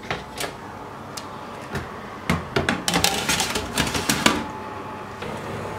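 Metal baking tray set on an oven's wire rack and slid in, with scattered knocks and then a dense run of clanks and rattles. About five seconds in, a steady hum with a faint tone starts.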